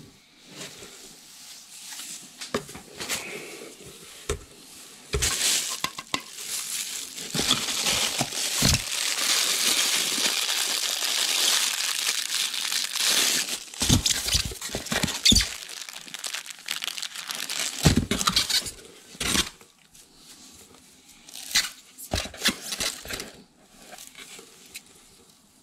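Plastic wrap crinkling and rustling as kit parts wrapped in it are handled and unwrapped, loudest and most continuous through the middle of the stretch. Short knocks and clicks of hard parts set down or bumping against the box and foam packing come now and then.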